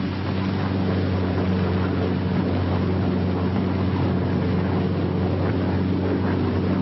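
Steady low hum with a layer of hiss that does not change, the background noise of a 1943 film soundtrack.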